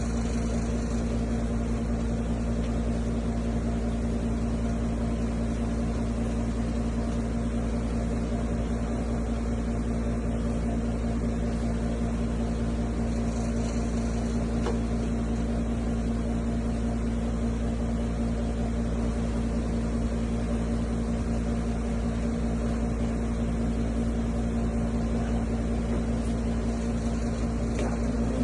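Steady machine hum at a constant pitch over a wide hiss, unchanging throughout.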